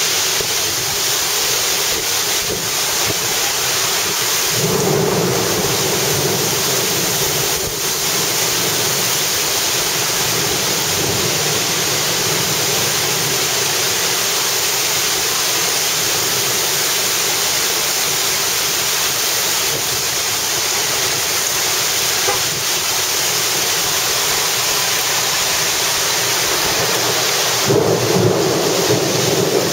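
Heavy wind-driven rain in a violent windstorm: a steady, loud rush of rain and wind that swells louder about five seconds in and again near the end.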